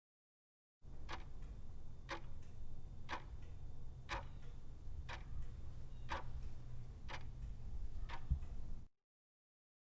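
Clock ticking about once a second, eight ticks over a steady low hum; it starts and cuts off abruptly, like a countdown-timer sound effect.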